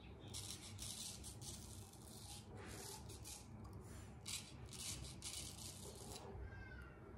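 Hayashi Diamond vintage Japanese straight razor scraping through lathered stubble on the chin and jaw, a run of short rasping strokes, some eight to ten in all.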